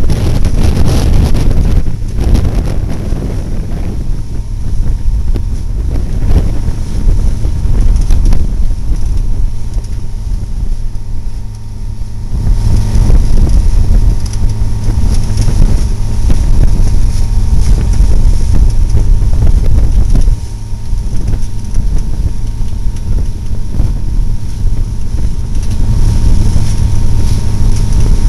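Wind buffeting the microphone over a boat engine running steadily, with a constant low hum.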